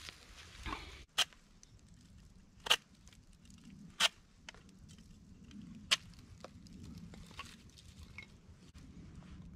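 Handling sounds of a folding saw and a carved stick: four sharp clicks a second or two apart over faint rustling of dry leaves.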